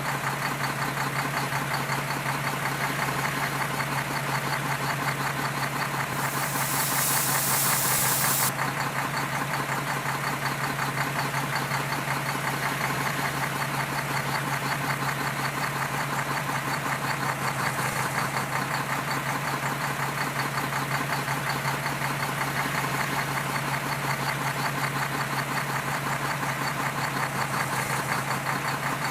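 Heavy diesel engine of earth-moving machinery running steadily with a fast clattering pulse. About six seconds in, a loud hiss cuts in for about two seconds.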